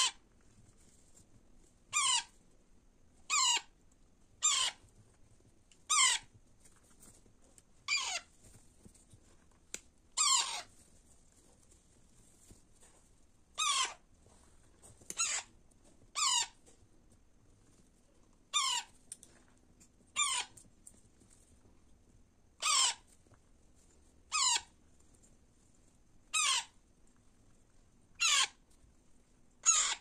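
Baby Alexandrine parakeet chicks giving short begging squawks while being hand-fed, one call every one to two and a half seconds, about seventeen in all.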